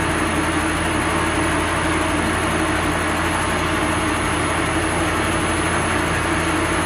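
Homemade Arduino-controlled CNC lathe running steadily, its chuck spinning the steel bar at about 700 rpm while the tool takes a light automatic turning cut. A thin, steady high whine sits over the machine noise.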